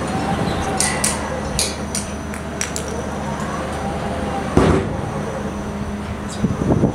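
Giant pendulum ride's drive machinery running on a test run: a steady low hum with a faint whine that rises and falls. Several metallic clicks about a second in and a heavy knock about four and a half seconds in.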